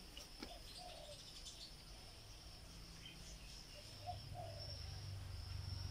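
Faint outdoor ambience: a few short bird calls over a steady high insect buzz, with a low rumble building in the last couple of seconds.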